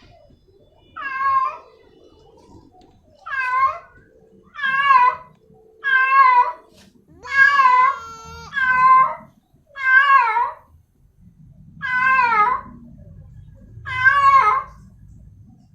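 Female domestic cat in heat calling for a male: nine drawn-out meows, each with a wavering pitch, coming every one to two seconds.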